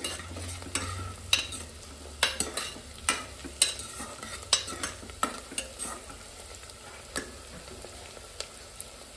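Sliced onions frying in oil in a pressure cooker, sizzling faintly while a steel spoon stirs them, with frequent scrapes and clinks of the spoon against the pot that thin out over the last few seconds.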